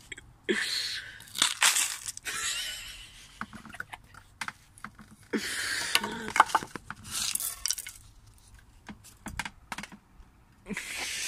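Irregular crunching and crinkling noises in bursts of about half a second to a second, mixed with scattered sharp clicks and knocks.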